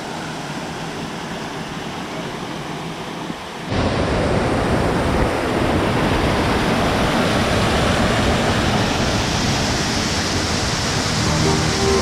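Rushing water of a small rainforest waterfall and its stream, a steady hiss that jumps noticeably louder about four seconds in.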